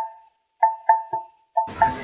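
Hampi's musical stone pillars struck one after another, about six short ringing notes that each die away quickly. Near the end a steady background noise comes in under them.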